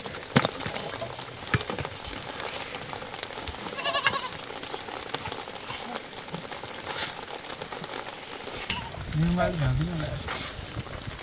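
Water poured from a steel jug into flour in a metal basin, then hands mixing and kneading the wet dough, with scattered clicks and knocks against the basin. A short wavering call rises out of it about nine seconds in.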